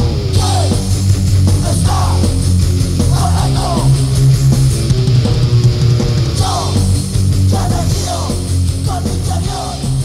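Punk rock music: a band with electric guitar, bass and drums, and a sung vocal line in short repeated phrases.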